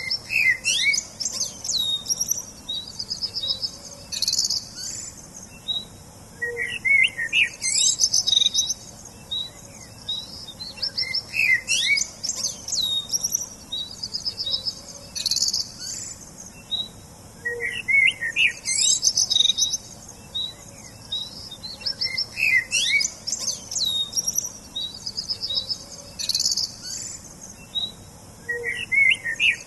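Small songbirds chirping and singing: bursts of high trills and quick chirps every three to four seconds, with a faint run of short ticks between them.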